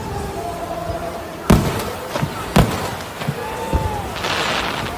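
Fireworks going off: two loud bangs about a second apart with a few softer pops between them, then a crackling hiss near the end.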